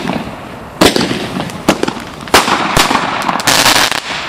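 Fireworks going off: a string of sharp bangs, loudest about a second in and again midway, with smaller cracks between them and a half-second hissing crackle near the end.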